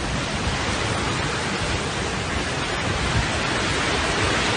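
Loud, steady rushing of water in a flood, an even roar with no breaks.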